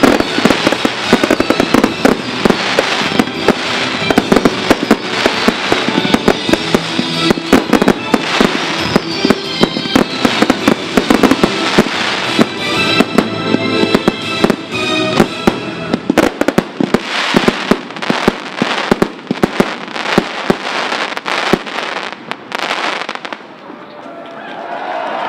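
Fireworks finale: a rapid, dense run of shell bursts and crackling bangs over music, thinning out and stopping shortly before the end.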